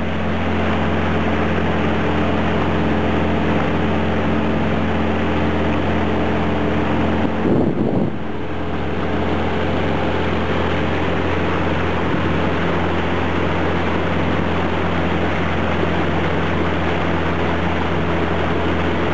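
Small tiller-steered outboard motor running at a steady speed under way, a constant drone with even engine tones over a hiss of rushing air and water. There is a short louder surge a little before halfway.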